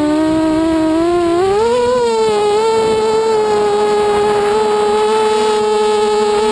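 FPV mini quadcopter's motors and propellers whining as heard from the onboard camera: the pitch climbs as the throttle comes up for takeoff about two seconds in, then holds a steady whine in flight.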